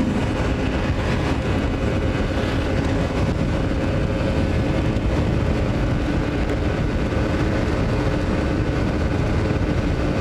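Steady wind rush at a helmet-mounted camera over the even drone of a motor scooter's engine at cruising speed, with tyre noise on wet asphalt.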